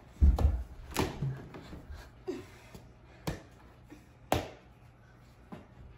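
A small indoor basketball being dribbled and handled in a scrappy one-on-one game, with hands slapping the ball and dull thuds on carpet. There are about five sharp, irregular slaps, the loudest about a second in and just past four seconds.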